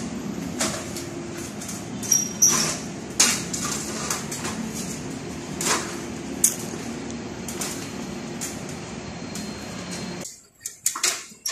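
Aluminium stepladder clanking and knocking as it is moved and climbed, a handful of sharp clunks over a steady background hum that stops suddenly near the end.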